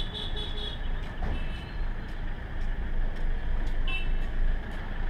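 A van's engine running and road noise, heard from inside the cabin as it moves slowly through traffic. A few short high beeps sound near the start and again about four seconds in.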